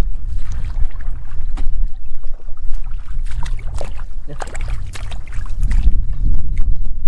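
Wind buffeting the microphone, with irregular splashing of hands and legs in shallow muddy water as it is groped through by hand.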